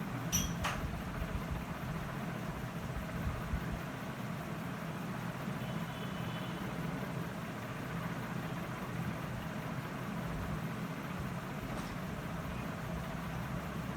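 A steady low hum, with a couple of short clicks about half a second in.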